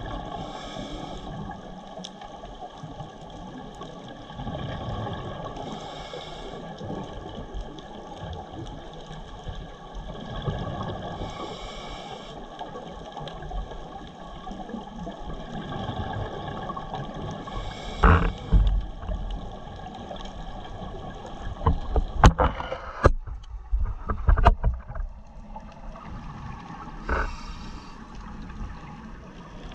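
Underwater audio picked up by a scuba diver's camera: a steady hum with a faint whine under it, and the hiss of the diver's regulator exhaust bubbles every five or six seconds. In the last third come a cluster of loud knocks and crackles.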